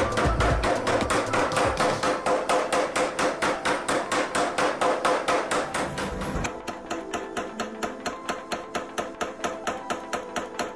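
25 kg power hammer striking a hot wootz steel ingot in a steady run of rapid blows, about four a second. About six seconds in, the blows turn quieter and thinner. Near the end, the stainless wootz ingot is barely moving under them.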